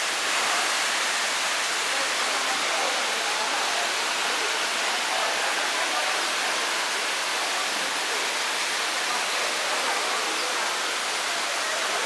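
Waterfall rushing steadily into a rock pool: a constant, even roar of falling water.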